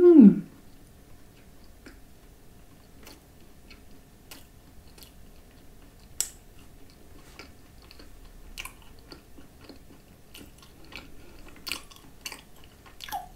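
A person chewing a bite of cream-filled croissant thickly coated with fridge-chilled coconut spread, which crunches: wet mouth sounds with scattered crisp crunches, the sharpest about six seconds in and again near twelve seconds. A short rising-and-falling hum comes at the very start.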